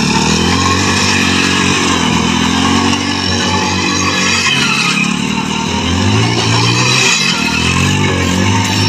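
Hero HF Deluxe's small single-cylinder engine revving up and down repeatedly while the rear wheel spins in loose sand and the bike pivots in a tight circle.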